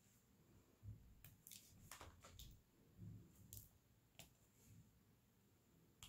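Faint, light clicks and taps of resin diamond-painting drills being picked from a plastic tray with a drill pen and pressed one at a time onto the sticky canvas, with a few soft low bumps of hand handling.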